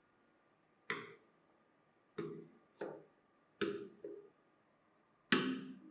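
Six sharp knocks at uneven intervals, each dying away with a short ring. The last is the loudest and comes near the end.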